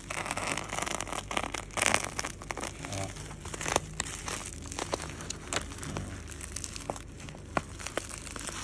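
Black plastic parcel wrapping and clear packing tape crinkling and crackling as it is slit with a utility knife and handled, with many small sharp clicks; the loudest rustle comes about two seconds in.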